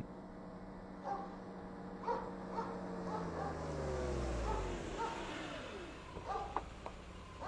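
A dog barking and yelping in short, repeated calls, over a low hum that slides down in pitch around the middle.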